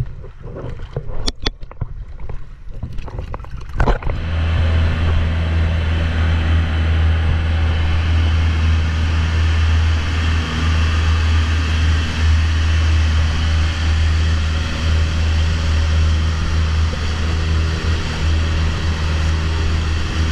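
Water sloshing and splashing at the surface, then from about four seconds in the engine of a motorized outrigger boat running underway, a loud, steady, low drone that holds even to the end.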